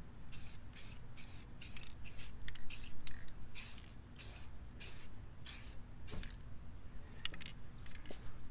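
Aerosol spray-paint can hissing in short, even bursts, about two a second, as paint is sprayed onto a car wheel. The spraying stops about six seconds in, followed by a couple of light clicks.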